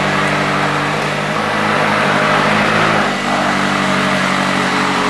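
McLaren sports car's twin-turbo V8 running steadily at idle, its note shifting slightly about three seconds in.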